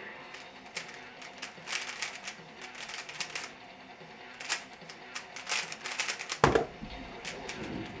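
Aolong V1 3x3 speed cube being turned fast by hand, its layers clicking and clacking in quick runs, then one heavy thump about six and a half seconds in.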